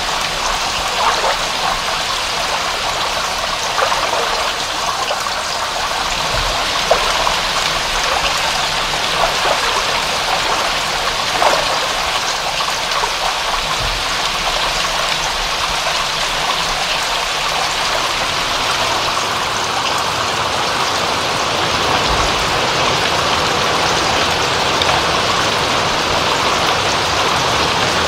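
Steady rain with many small drops pattering and a few louder drips standing out, along with running, trickling water.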